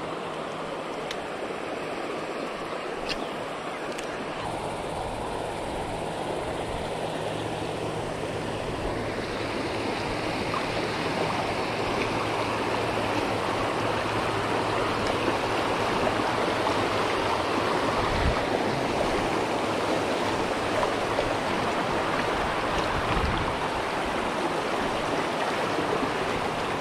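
Creek water rushing over shallow rocky riffles and small rapids. A steady rush that grows louder through the first half, then holds.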